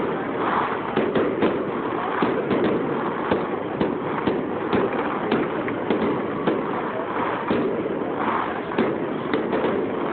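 Fireworks display: aerial shells bursting in a dense, irregular barrage of bangs, about two or three a second, over a continuous crackling din.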